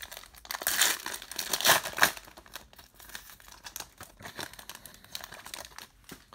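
Foil wrapper of a 2018 Bowman's Best baseball card pack being torn open and crinkled by hand. The crinkling is loudest about one to two seconds in, then softer scattered rustles follow as the cards are handled.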